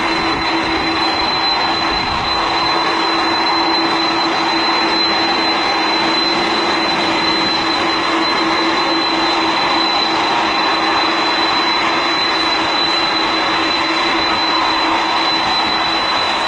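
Aeroplane engines running at takeoff power: a loud, steady rush of noise with a steady high whine.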